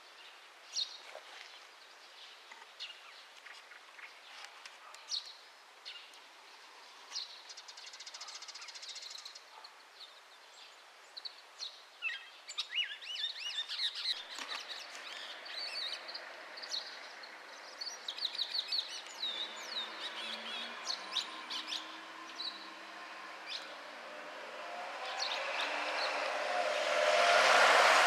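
Chestnut-cheeked starling (also called violet-backed starling) singing: scattered short high notes at first, turning into a busier run of chattering song about halfway through. Near the end a passing vehicle swells up and becomes the loudest sound.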